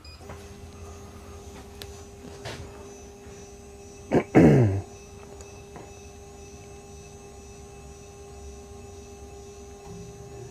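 Anet N4 resin printer's Z-axis stepper motor homing, driving the build plate down toward the leveling paper with a steady whine that stops near the end. About four seconds in there is a short, louder sound that falls in pitch.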